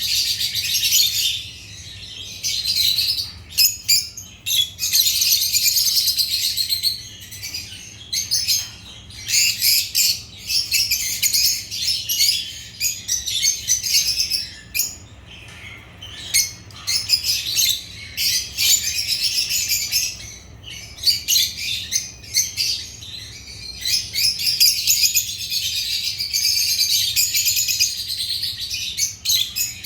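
African lovebirds (Agapornis) chirping, with rapid, high-pitched chatter in bouts of a few seconds broken by short pauses.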